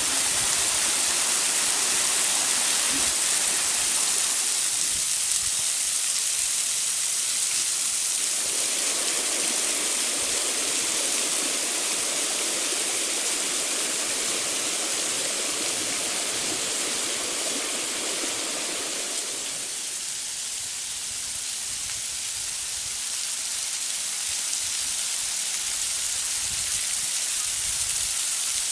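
Waterfall: a steady rush of falling water. It sounds fuller for about ten seconds in the middle.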